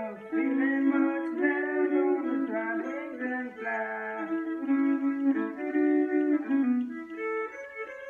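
Solo fiddle playing an old-time tune, bowing two strings at once through much of the passage, with the notes changing several times a second.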